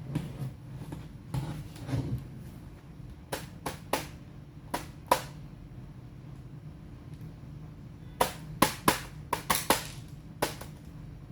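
Sharp clicks and taps of hands and small tools working on a laptop's plastic case and parts: a few in the first half, then a quick cluster of about eight near the end, over a faint steady hum.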